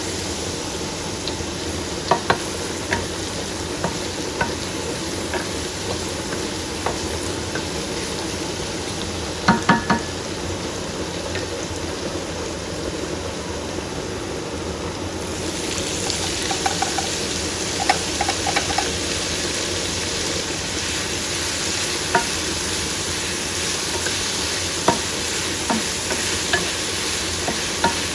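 Food sizzling in a frying pan, with a cooking utensil clicking and knocking against the pan now and then, including three quick ringing knocks about ten seconds in. The sizzle grows brighter and louder about halfway through.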